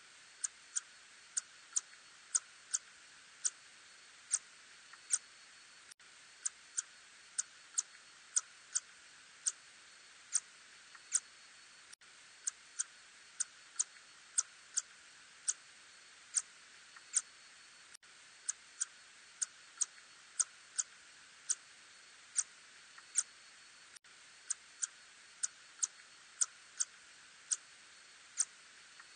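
Ussuri tube-nosed bat echolocation calls, made audible, heard as short sharp high clicks about one to two a second over a steady hiss. The same short sequence repeats about every six seconds.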